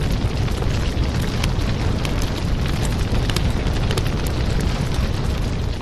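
Sound effect of a fire: a steady roaring rush with scattered crackles throughout.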